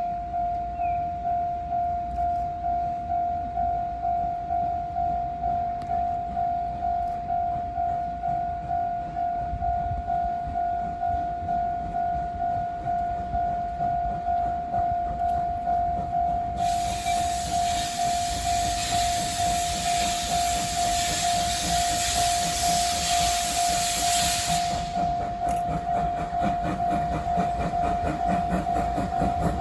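Japanese level-crossing warning bell ringing a single steady pitch in an even repeating beat throughout. About two-thirds of the way in, a loud hiss of steam from the approaching 8620-class steam locomotive of the SL Hitoyoshi lasts about eight seconds and then cuts off. Near the end the locomotive's running and wheel noise start to build.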